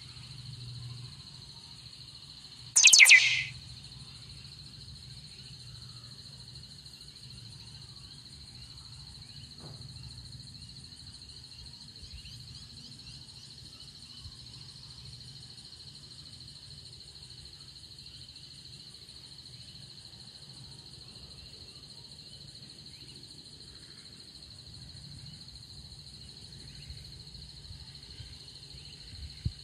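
A steady, high-pitched drone of insects, with one loud, short bird call about three seconds in and a faint low rumble underneath.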